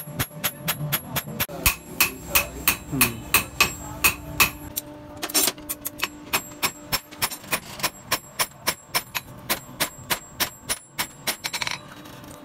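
Blacksmith's hand hammer striking a hot steel sickle blade on an anvil, a steady run of about three blows a second with a metallic ring, stopping near the end.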